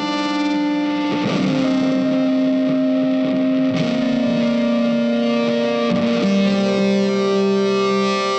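Background music: long held notes that step to a new pitch about every two and a half seconds.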